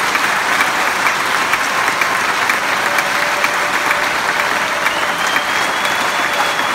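Concert audience applauding steadily: many hands clapping at once.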